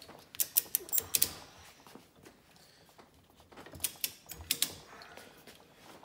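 Ratchet-strap buckles clicking in short runs as they are worked to compress a strut's coil spring. A cluster of clicks comes in the first second, then a pause, then another run about four seconds in.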